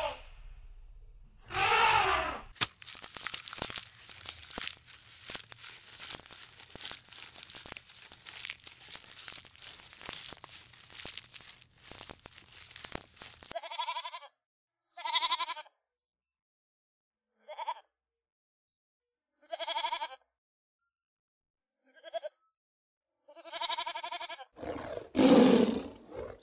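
Goats bleating, a series of short separate calls every one to two seconds, after about eleven seconds of dense crackling clicks. A brief animal call sounds about two seconds in, and a lower, louder call comes near the end.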